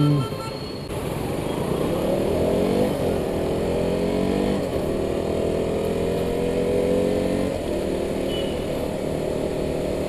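Motorcycle engine pulling away from a standstill and accelerating up through the gears. The engine note climbs, drops at each gear change about three, four and a half and seven and a half seconds in, then settles into a steady cruise. A brief steady tone sounds at the very start.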